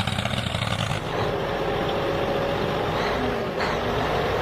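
A vehicle motor running steadily, its sound changing about a second in to a higher held tone that slowly climbs, with two short knocks about three seconds in.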